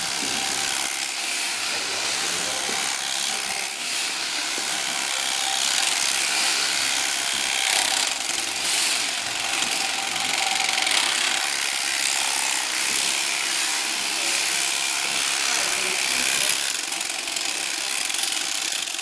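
Electric alpaca-shearing handpiece running steadily as it clips through dense black alpaca fleece.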